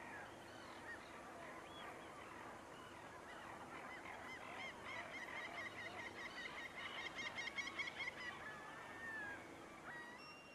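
A chorus of waterbirds calling over one another, with many short rising-and-falling calls. In the middle, a fast, even series of repeated high calls runs for about three seconds and is the loudest part.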